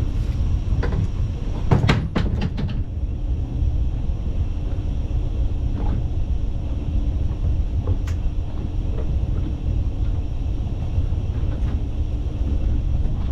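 Steady low rumble of the fishing boat's engine running, with a quick run of clicks and knocks about two seconds in and a couple of single clicks later.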